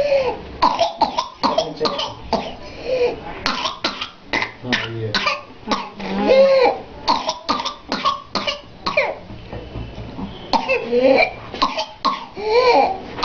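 A child's whooping cough (pertussis): long runs of rapid, short coughs following one after another with hardly a pause. The runs are broken by a few longer, pitched, drawn-out sounds at about six seconds in and again near eleven and thirteen seconds.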